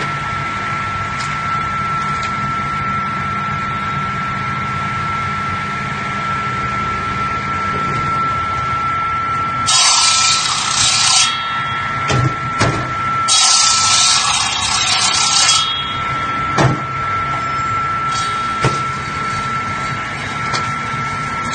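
Six-blade ice-cutting machine running with a steady motor hum and a high whine. About ten seconds in, its saw blades cut into a block of ice in two bursts of loud hissing, grinding noise, with a few sharp knocks in between and after.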